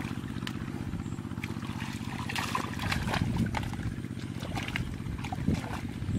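Shallow muddy water splashing and sloshing as hands grope through it for fish, over a steady low motor hum.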